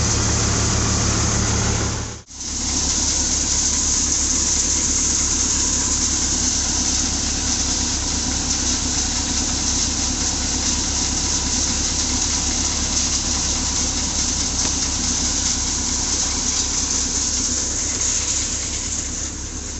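A 25 hp Kamdhenu thresher, driven by a diesel tractor, running steadily while threshing chickpea: the engine runs under load with the thresher's drum and sieves, and a constant high hiss of chaff and grain. The sound drops out abruptly for a moment about two seconds in.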